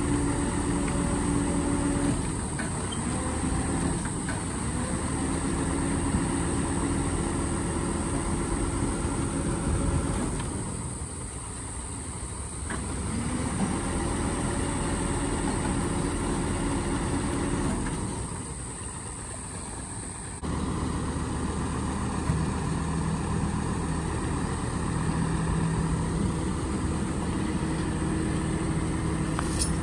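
A tilt-tray tow truck's engine runs steadily while the tray and winch load the cabin. Its hum dips twice and picks up again. About two-thirds of the way through it changes abruptly to a steadier, lower running sound.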